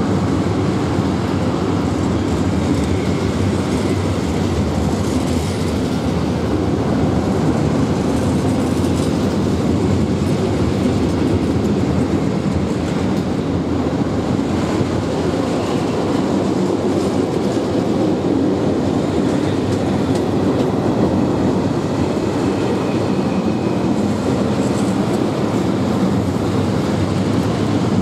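Train of Eaos open freight wagons rolling past close by. A steady, loud rumble with rapid clattering from the wheels on the rails.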